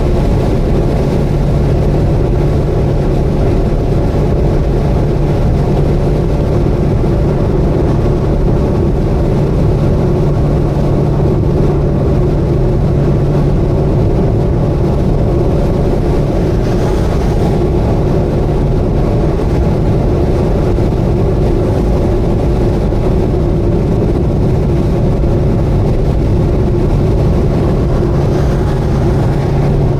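Subaru Vivio KK3 kei car driving on an expressway: a steady engine hum with road noise, unchanging throughout.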